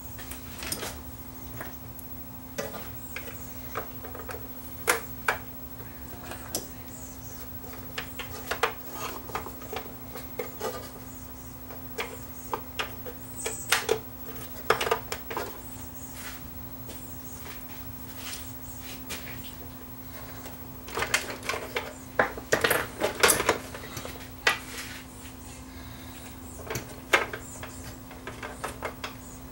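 Scattered plastic and metal clicks, taps and knocks as the carousel tray assembly of a five-disc CD changer is handled and fitted into its chassis, with a busy run of clatter about two-thirds of the way through. A steady low hum runs underneath.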